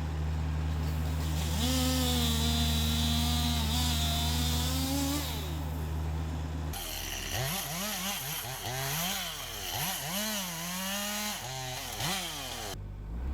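Chainsaw running and cutting over a steady low hum. Its pitch rises and is held for a few seconds, then later swings up and down repeatedly with the throttle.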